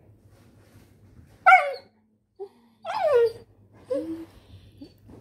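Yellow Labrador puppy whimpering: two short, louder calls that fall in pitch, about a second and a half and three seconds in, then a few fainter whines.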